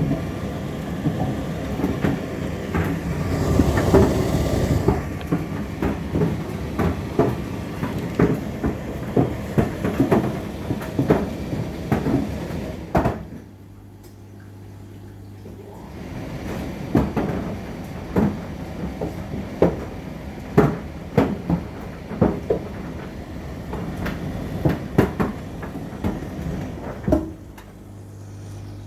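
Indesit IDC8T3B condenser tumble dryer running, its drum turning with laundry tumbling inside and frequent knocks of the load against the drum. About 13 seconds in the tumbling stops for a couple of seconds, leaving only a steady low hum, then the knocking resumes.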